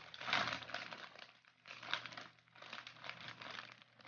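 A thin white plastic bag full of packed goods crinkling and rustling in irregular bursts as it is handled and pressed, loudest about a third of a second in and again around two seconds in.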